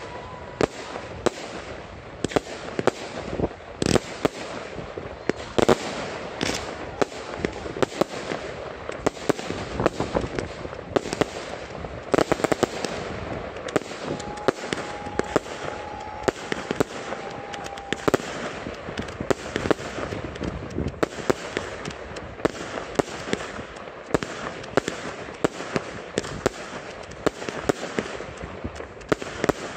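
Fireworks display fired without mortar shells, in a continuous rapid volley: dense sharp pops and bangs several times a second over a steady hiss of burning stars.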